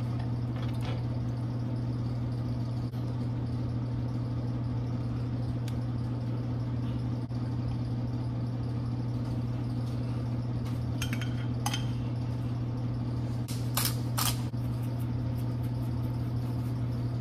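A steady low hum, like a kitchen appliance or fan running, with a few light clicks and clinks of a spoon against a glass salsa jar and a bowl, bunched near the end.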